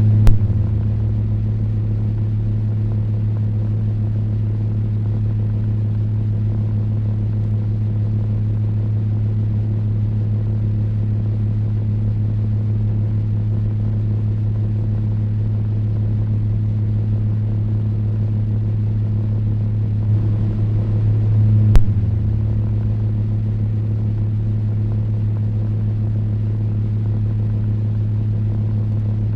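Table fan running steadily: a strong, low motor hum under a hiss of moving air. A sharp click comes right at the start and another about 22 seconds in, the second after a short swell in level.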